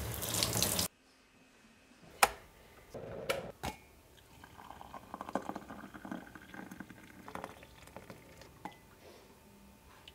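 Shower spray hissing, cut off abruptly about a second in. A few sharp clicks and knocks follow, then water is poured from a kettle into mugs for several seconds.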